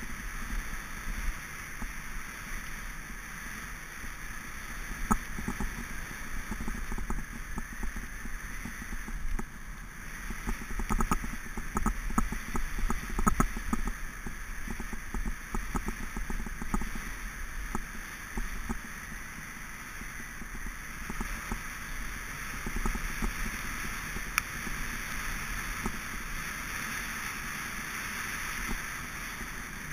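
Mountain bike rolling fast down a dirt track, heard through a bike-mounted camera: a steady rush of wind and tyres on gravel, with many small rattles and knocks over bumps, busiest about ten to fourteen seconds in.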